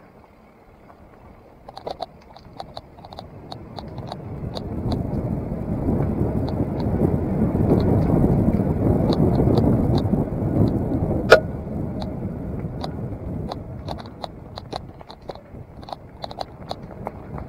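Mountain bike riding over a rough track: tyre rumble and wind on the microphone swell over several seconds, then ease. Frequent small rattling clicks come from the bike throughout, and there is one sharp clank about eleven seconds in.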